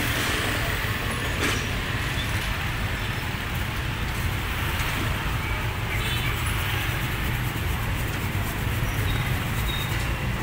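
Steady traffic rumble with general market background noise, and a single sharp click about a second and a half in.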